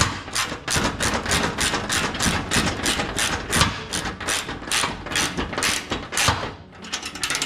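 Hand socket ratchet clicking in quick, even strokes, about three a second, as a square-necked carriage bolt on the plow is run down. The strokes stop about six and a half seconds in.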